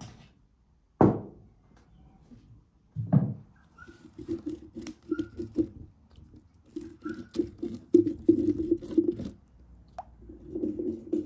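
Two dull thuds, then dry ingredients poured from a wooden bowl pattering into a hollowed-out pumpkin in dense runs of small ticks, with a hollow resonance from the pumpkin's cavity.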